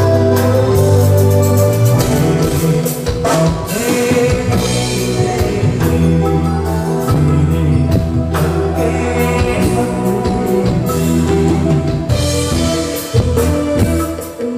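Live band playing amplified music through a PA: keyboards, drum kit and a steady bass line, with a lead singer on microphone.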